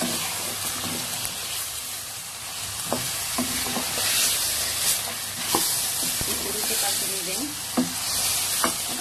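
Raw chicken pieces sizzling as they fry in hot oil and spice masala in a pot, being stirred, with a few sharp knocks of the spoon against the pot.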